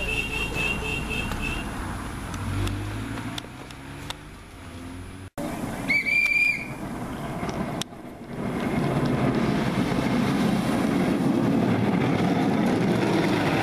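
A small car's engine drives past, its note falling, over the first few seconds. About six seconds in comes a short whistle. From about eight seconds a steady, loud rushing noise takes over.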